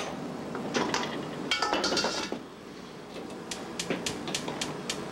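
Stainless-steel cookware clattering and clinking as a mesh strainer, mixing bowl and stockpot are handled, with a quick run of sharp metal clinks near the end.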